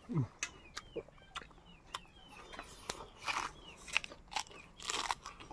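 Eating sounds: short sharp clicks and noisy bursts of chewing and slurping, with chickens clucking in the background.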